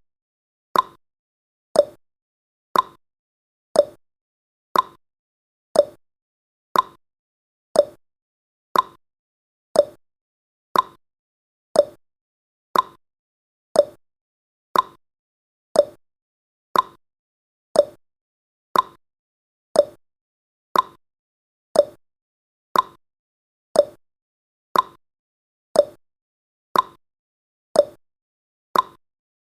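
Clock-style ticking sound effect of a countdown timer: one sharp click a second, alternating higher and lower in pitch like a tick-tock.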